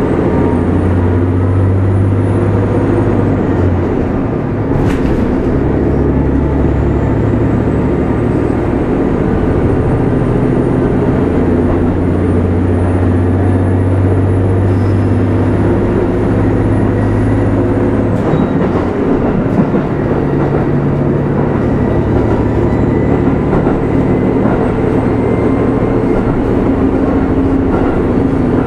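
Onboard sound of a JR KiHa 25 diesel railcar: its diesel engine running with a strong low hum that shifts in pitch in steps several times, mixed with the rumble of the train. A single sharp click comes about five seconds in.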